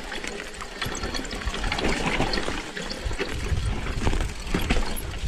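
Mountain bike riding down a trail: a steady rushing noise of tyres rolling over dirt and stones, with scattered clicks and knocks from the bike.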